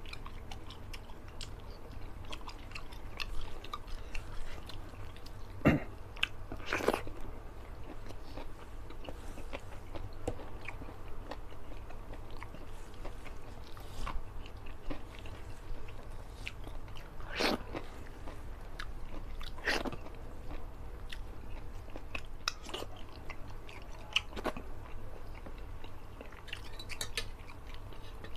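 A man chewing fish-head meat in curry sauce eaten by hand, with wet mouth smacks and clicks at irregular intervals, a few of them louder.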